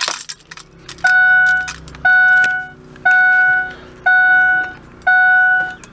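2003 Ford Super Duty's dashboard warning chime dinging once a second, five even dings starting about a second in, the chime that sounds with the key in the ignition.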